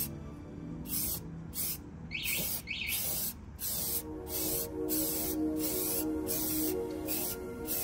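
Aerosol spray can of primer hissing in short repeated bursts, over background music.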